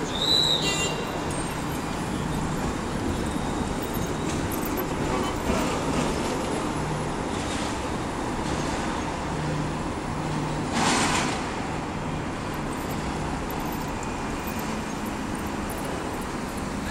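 Steady city street traffic noise, with a low hum that comes and goes. A short high beep sounds right at the start, and a brief rush of noise stands out about eleven seconds in.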